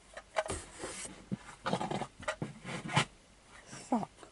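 Rummaging through a box of small plastic toy parts: scattered clicks, rattles and rustles as pieces are moved about, with a short whine that bends in pitch near the end.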